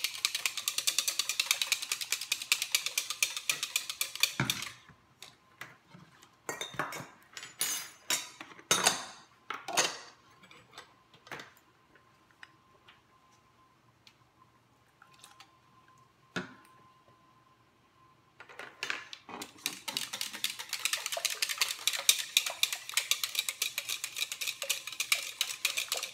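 Wire whisk beating a thin egg-and-oil cake batter in a ceramic mixing bowl: a fast, even clatter of the wires against the bowl. It stops about four and a half seconds in, leaving a few scattered clinks and knocks, and starts again a few seconds before the end.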